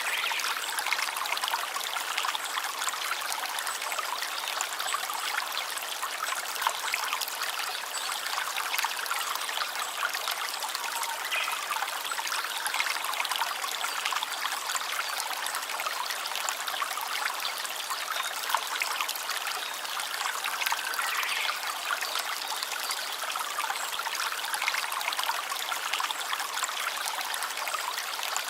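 Small stream babbling and trickling over stones, a steady bright splashing water sound with no deep rumble.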